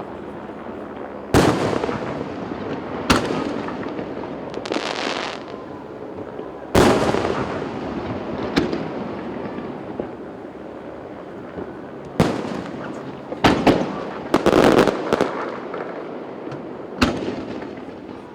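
Aerial firework shells bursting: about eight sharp booms at irregular intervals, each trailing off in a long rolling echo. Some bursts are followed by a spell of crackling, and a quick cluster of bangs comes about two thirds of the way in.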